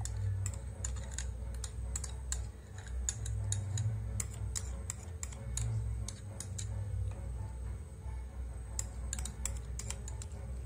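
A metal spoon scraping and tapping against a small glass bowl as thick coffee-and-sugar paste is scooped out, heard as irregular light clicks several times a second over a low steady hum.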